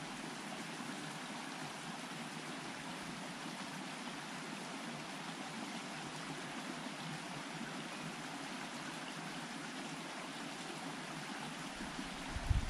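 Steady rushing of a stream flowing. A brief low thump near the end.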